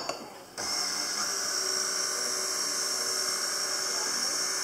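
KitchenAid Artisan tilt-head stand mixer switching on about half a second in, then running steadily at low speed (speed 2) as its wire whisk beats muffin batter, with a high, even motor whine.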